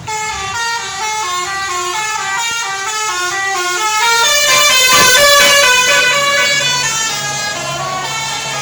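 A bus's basuri musical air horn playing a fast telolet-style melody of short stepping notes, loud. About four seconds in, the tune moves to higher notes over a held tone and grows louder, then eases off.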